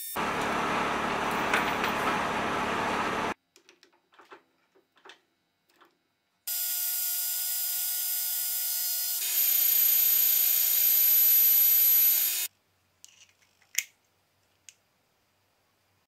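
Metal lathe cutting a metal bushing: a steady, loud cutting noise for about three seconds, then faint clicks. The cut then squeals as a steady high-pitched whine that drops lower and gets louder partway through, then stops suddenly.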